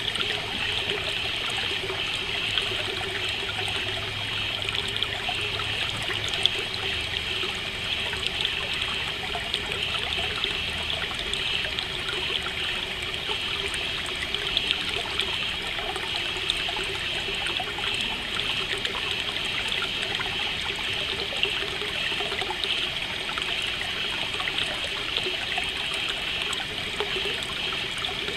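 A stream trickling steadily.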